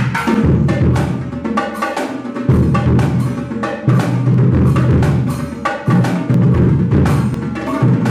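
Drumline-style percussion: rapid snare strokes over deep bass-drum beats, a steady stream of hits that thins out briefly twice.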